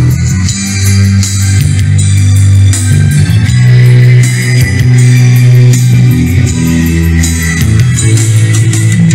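Karaoke backing track with guitar, bass guitar and drums, played loud through the BRODU Lexing BTS-1708 speaker's dual 10-inch woofers, with heavy held bass notes.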